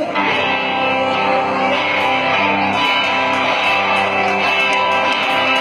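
Rock band playing live: electric guitars strumming, with bass and drums, all coming in together at once and carrying on loud and steady.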